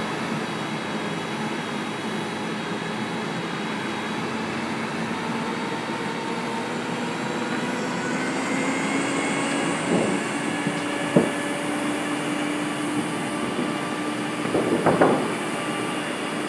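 Crane engine running steadily while hoisting a load. Its pitch rises slowly about halfway through and then holds higher. A few brief sharp sounds come in the second half.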